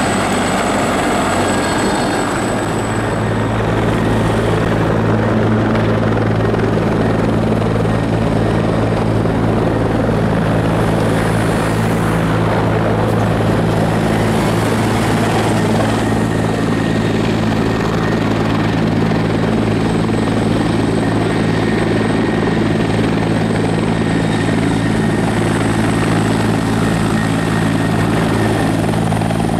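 Helicopter running steadily, its rotor and turbine making a loud, even drone with a thin high whine over it.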